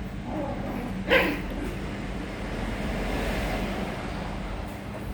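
A poodle puppy gives one short, sharp bark about a second in.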